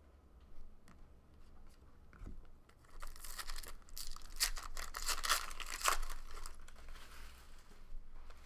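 A trading-card pack wrapper torn open and crinkled by hand. The tearing and crackling begin about three seconds in, are loudest for about three seconds, then taper off. Before that there are only a few faint clicks.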